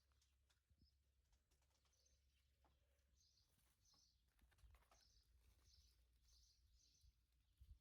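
Near silence with a faint low hum, and a series of faint high bird chirps, roughly two a second, through the middle and latter part.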